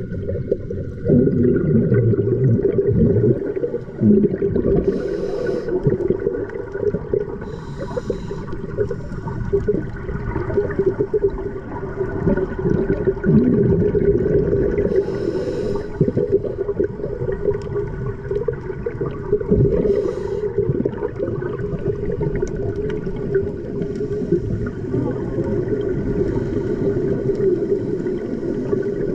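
Scuba diving heard underwater: a steady low noise with a hissing burst of exhaled bubbles from a diver's regulator every few seconds.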